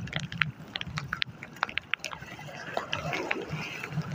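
Scattered, irregular sharp clicks and ticks over a low rumble of wind and waves washing over concrete.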